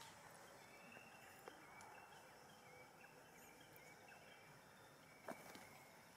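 Near silence: faint outdoor background with a few faint, short, high chirps and a single sharp tick about five seconds in.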